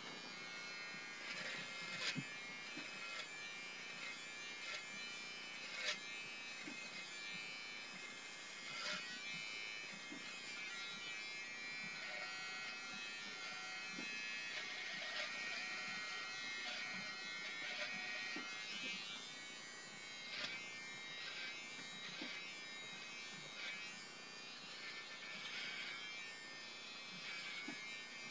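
BaByliss for Men i-stubble beard trimmer running with a steady buzz as it trims stubble along the chin and neck, with occasional light clicks as it is moved over the skin.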